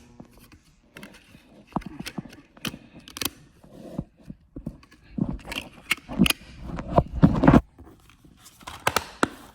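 Packaging and items being handled during an unboxing: irregular clicks, knocks and rustling, with a denser, louder flurry of knocks a little past the middle.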